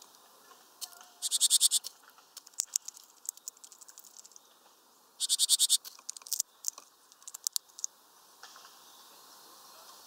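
Great tit pecking and tapping at the feeder perch: two short, fast rattles of sharp taps, about a second in and again after five seconds, with scattered single taps between.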